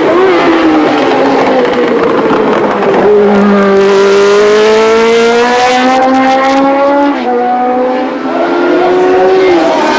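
Mid-1970s Formula One car's engine at high revs. The note sags, then climbs steadily under acceleration, drops sharply at a gear change about seven seconds in, climbs again and falls away near the end.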